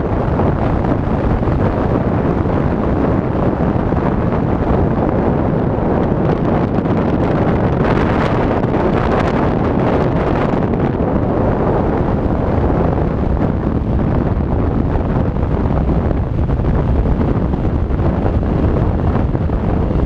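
Heavy wind noise buffeting the onboard camera's microphone over the running of a Yamaha XT600 2KF's air-cooled single-cylinder four-stroke engine while the bike rides along. The wind hiss grows brighter for a few seconds near the middle.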